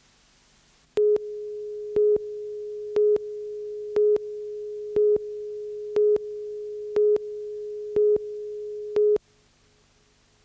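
Countdown-clock line-up tone on a television news videotape: one steady pitch with a louder beep once a second, nine beeps in all. It starts about a second in and cuts off about a second before the end, counting down to the start of the next news item.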